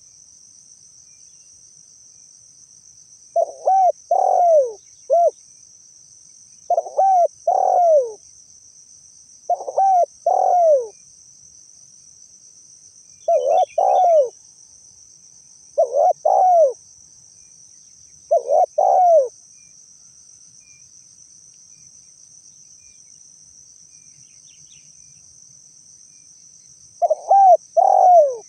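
Spotted dove (tekukur) cooing, seven phrases of a few rounded notes each, about every two to three seconds and then after a pause of several seconds near the end. A steady high insect drone runs underneath.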